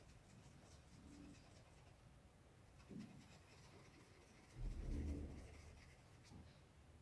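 Faint, repeated scratchy strokes of a small paintbrush on fabric stretched taut in an embroidery hoop, as pink fabric paint is worked onto the petals. A dull low bump about two-thirds of the way through is the loudest sound.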